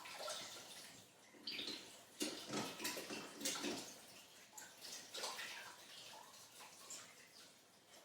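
Hands being washed under a running kitchen tap: water splashing and trickling into the sink in uneven bursts.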